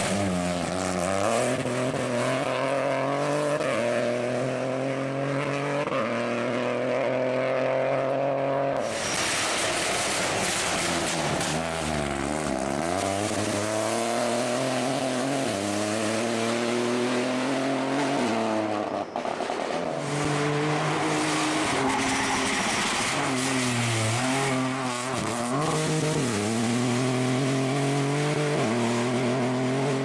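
Peugeot 208 Rally4 rally car's turbocharged three-cylinder engine at full throttle, its pitch climbing through each gear and dropping at every upshift, with falling blips on downshifts. The sound changes abruptly twice, about nine and nineteen seconds in.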